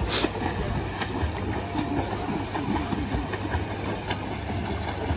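Water splashing as a learner swimmer kicks her legs in a pool, with one sharp splash right at the start, over a steady low rumble.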